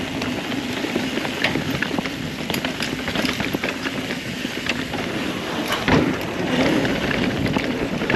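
Mountain bike rolling fast down a dry, loose dirt trail: tyres on loose dirt with a steady rushing noise, and many small rattles and clicks from the bike. A harder knock comes about six seconds in.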